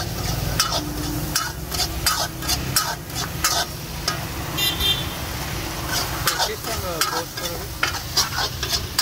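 Long steel ladle stirring and scraping masala around a blackened iron karahi, with repeated clinks of metal on metal over the sizzle of the masala frying in oil.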